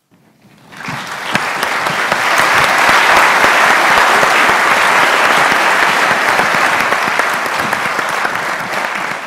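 Audience applauding: a large crowd clapping, swelling over the first couple of seconds, holding steady, then starting to fade near the end.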